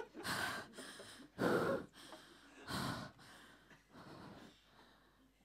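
A woman breathing heavily: four loud, breathy gasps about a second and a half apart, the second the loudest, dying away near the end.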